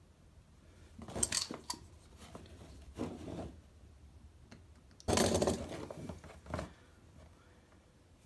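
Hand handling noises as a rubber grommet and a power cord are worked into a hole in a steel cabinet: a few short scrapes and rustles, the loudest and longest about five seconds in.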